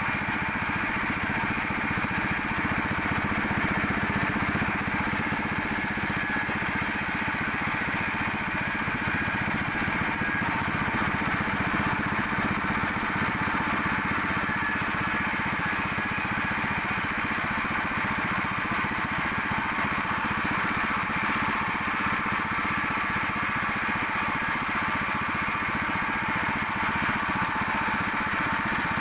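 Sawmill machinery running steadily, a constant mechanical drone with no break or change in level.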